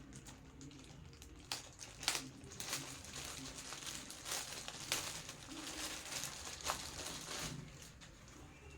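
Packaging crinkling and rustling in irregular bursts as it is handled, with a few sharper crackles.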